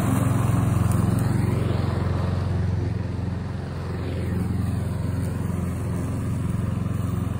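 Kohler petrol engine of a Stihl RM 650 V walk-behind lawn mower running steadily under load while mowing, dipping slightly in loudness about halfway through.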